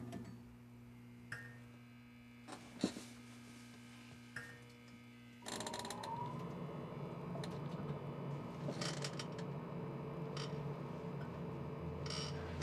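Tram sounds: a low electrical hum with a few single clicks. About halfway in, a louder steady running noise of the moving tram starts, with a short rising whine as it sets off. There is a brief clatter near the end.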